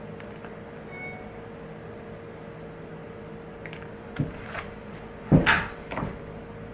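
A few short knocks and clatters of a small plastic glitter jar being capped and things being set down on a wooden workbench, the loudest about five and a half seconds in, over a steady faint hum.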